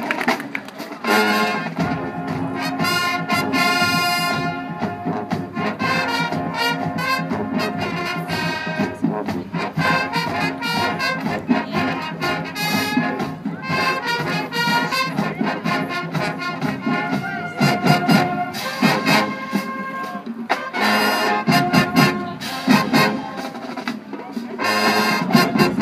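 High school marching band playing on the field: a full brass section with sousaphones, backed by a drumline whose sharp hits come thick in the second half.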